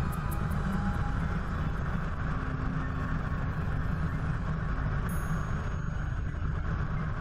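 Helicopter in cruise flight heard from a GoPro mounted on its nose: a steady din of rotor, engine and wind noise, sped up to double speed.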